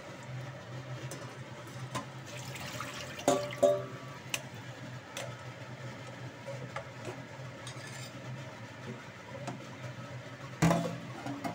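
Bowls being handled on a kitchen counter: a stainless-steel bowl gives two short ringing clanks about three seconds in and a louder clunk near the end, with small clicks between, over a steady low hum.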